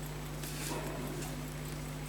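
Steady low electrical hum, with one faint click about half a second in.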